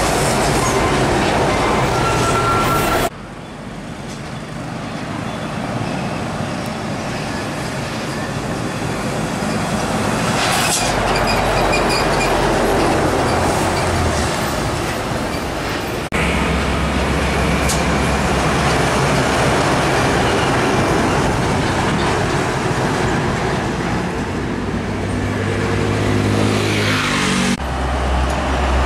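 Heavy diesel tractor-trailer trucks passing close by one after another: engines running and big tyres rolling on the road. The sound changes abruptly twice, about three seconds in and about halfway through, and an engine note rises near the end as a truck pulls away.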